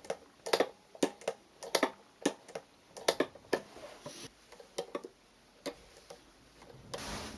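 A dozen or so irregular light clicks and taps of small hard objects being handled, over about five seconds. A steady hiss starts near the end.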